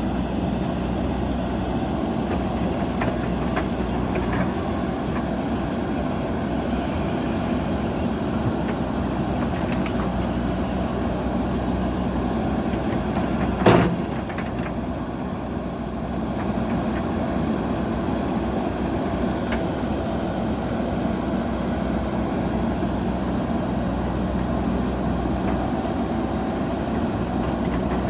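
Diesel engine of a JCB backhoe loader running steadily, with a few faint clicks and one sharp knock about halfway through.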